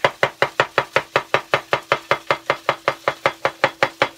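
Chef's knife slicing a peeled cucumber into thin half-moons on a plastic cutting board: a quick, even run of knife taps on the board, about seven a second.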